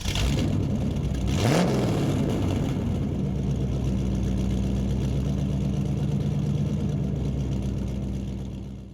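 Car engine running, revved up once about a second and a half in, then held at a steady speed before fading out near the end.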